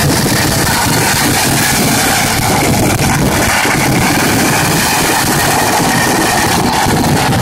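Loud barrage of vedikettu firecrackers, so many bangs going off at once that they merge into one steady, continuous din.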